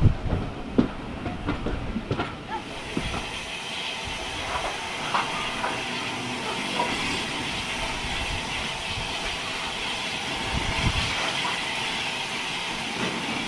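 Railway coach wheels clicking past for the first couple of seconds, then a steady hiss of steam escaping by the cylinders of the standing Bulleid Battle of Britain class Pacific 34072. A brief low rumble comes near the end.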